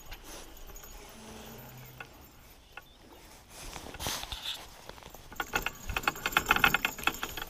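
Spinning reel being cranked to wind in the line: a rapid run of fine clicks from the reel from about five seconds in, after a brief handling rustle around four seconds.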